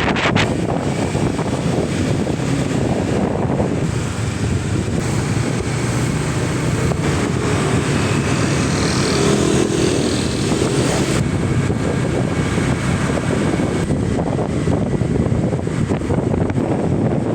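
Steady wind noise on the microphone over the low rumble of a running motor, continuous throughout.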